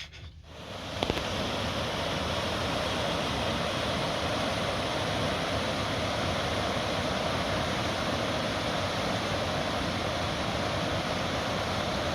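Steady rush of flowing water, starting suddenly about a second in and holding even.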